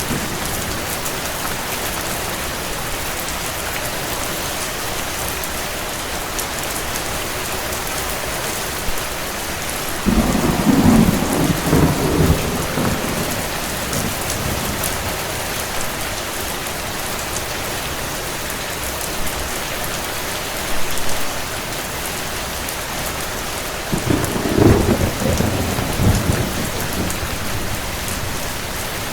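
Steady rain with two rolls of thunder, one about ten seconds in and another near the end, each rumbling for a few seconds.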